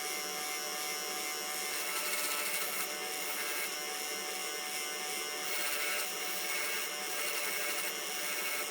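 A small electric power tool buzzing steadily, with a constant motor whine and slight swells as it works the rust off steel pliers.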